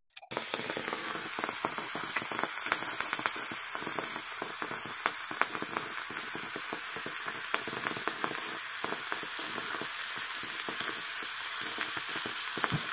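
Charcoal burning in molten potassium nitrate in a test tube, a steady sizzling hiss with rapid, irregular crackling pops as the oxidiser feeds the fire.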